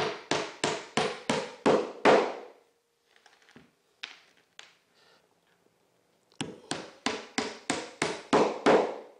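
Hammer driving nails into plywood underlayment: a run of quick, evenly spaced blows, about three or four a second, each run sinking a nail. The blows stop about two seconds in, a few faint clicks follow, and a second run of about ten blows starts near the middle.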